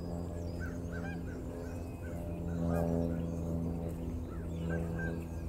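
Outdoor farm sound: a steady low hum runs throughout, with short scattered bird calls over it.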